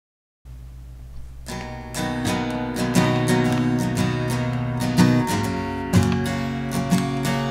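Acoustic guitar strumming chords, starting about a second and a half in after a moment of dead silence and a faint low hum.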